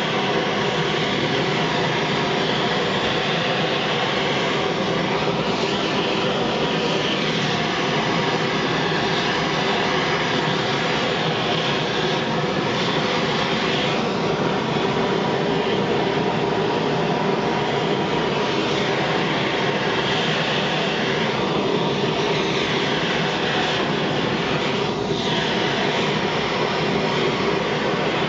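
Sievert propane torch with a 2943 nozzle burning steadily, an even, unbroken rushing noise, as the flame heats a copper boiler for silver soldering.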